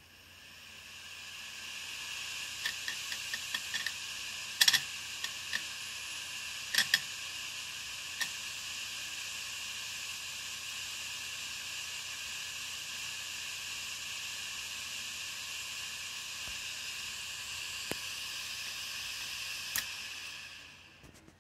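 Western Digital WD2500AAJS 7200 rpm 3.5-inch hard drive running with its lid off. The platter spins up over about two seconds into a steady, high, hissing whir. The read/write head arm clicks and ticks repeatedly as it seeks over the platter for several seconds, clicks twice more later, and the whir dies away near the end.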